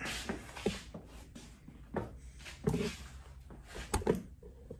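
Footsteps on wooden floorboards: a few soft knocks and scuffs spread out, with a sharper click about four seconds in.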